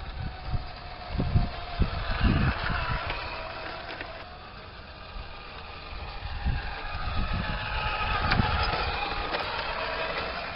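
Radio-controlled model truck driving, its motor and gearbox whine rising and falling as it speeds up and slows down, with several low thumps.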